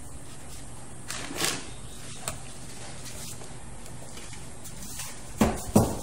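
Light handling noises as a RAM stick is picked up and moved over a motherboard: a soft rustle about a second in, a brief tick just after two seconds, and two sharper knocks near the end, over a steady background hiss.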